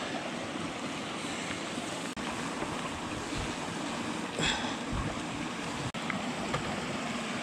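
Steady rush of a shallow rocky creek's running water, with a short splash about four and a half seconds in.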